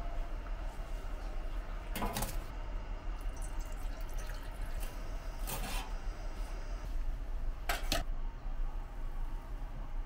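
A stainless steel cup handled on a weighing scale's steel platform: three short scrapes a few seconds apart, over a steady low hum.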